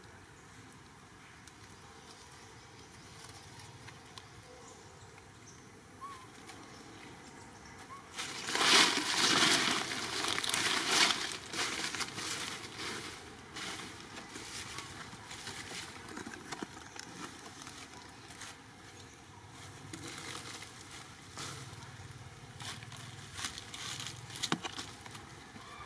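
Dry leaf litter rustling and crackling as monkeys move over it. It is quiet at first, then comes a loud burst of crackling about eight seconds in that lasts some four seconds, followed by scattered rustles and crackles.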